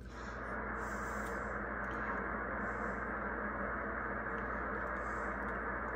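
Drake R-4B shortwave receiver's speaker giving a steady hiss of band noise, cut off sharply above the narrow receive passband, with a low hum beneath it and no station audible.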